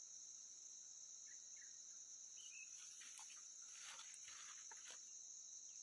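Faint, steady high-pitched drone of an insect chorus, with a few soft clicks or rustles about halfway through.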